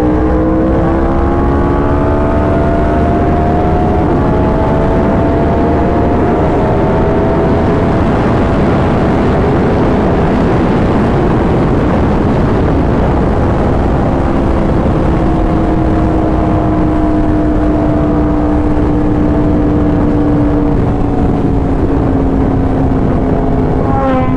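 Yamaha R1's crossplane inline-four through an SC Project exhaust, running at a steady cruise under the rider: the engine note climbs slowly over the first few seconds, gets rougher in the middle, then holds an even, slightly falling drone, with wind rushing over the microphone throughout.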